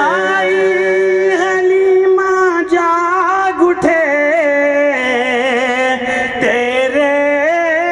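A naat, a devotional song in praise of the Prophet, sung in Urdu/Punjabi: the singer holds long drawn-out notes with a slight waver, dropping to a lower held note about halfway through.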